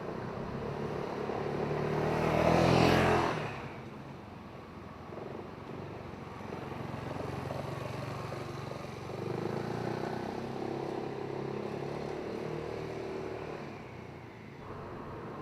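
BMW C400X scooter's single-cylinder engine passing close by, growing louder to a peak about three seconds in, then dropping away sharply. The engine is then heard running at a lower level, swelling again midway through.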